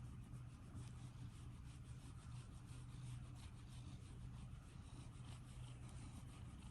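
Near silence: a steady low hum with faint, light scratching ticks throughout.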